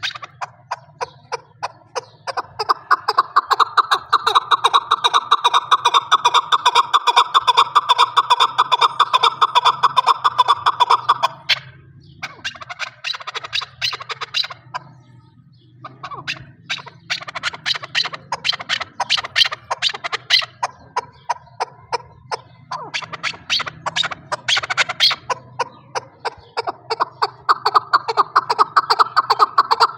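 Chukar partridge calling: a long run of rapid, repeated chuck notes that breaks off briefly about halfway through and then picks up again.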